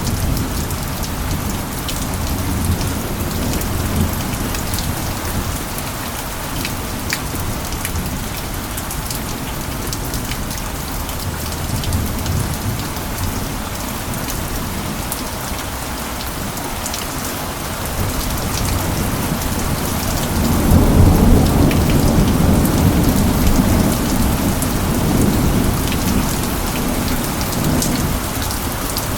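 Steady rainfall with scattered individual drop ticks, under a low rumble of thunder. The thunder swells into a louder roll about two-thirds of the way through and keeps rumbling to the end.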